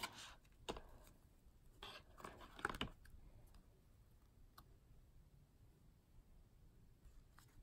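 Faint handling of paper and card: light clicks and short rustles as printed inserts are slid out of a paper pocket and handled, mostly in the first three seconds, then only a few soft ticks.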